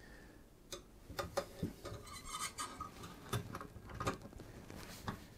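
Light, irregular metallic clicks and ticks of a long-shafted screwdriver seating in and turning a CPU cooler's mounting screw, the first few turns on one side of the Scythe FUMA 2's AM4 bracket.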